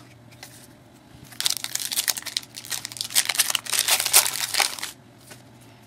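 A trading card pack wrapper crinkling and tearing as the pack is opened by hand, a dense run of crackling that starts a little over a second in and stops about a second before the end.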